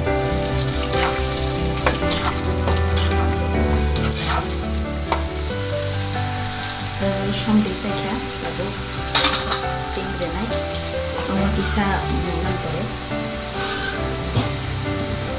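Food frying and sizzling in a two-handled iron wok while a metal ladle stirs it, with sharp scrapes and knocks of the ladle against the pan; the loudest knock comes about nine seconds in.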